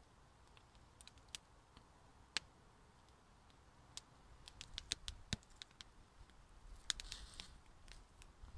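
Small wood campfire crackling, with sharp irregular pops and snaps that come more often in the second half. A short rustle comes near the end.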